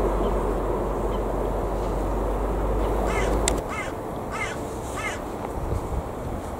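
Steady low rumble of a jet airliner landing on the runway, which drops away abruptly about three and a half seconds in. Over it, a crow caws four times in the middle.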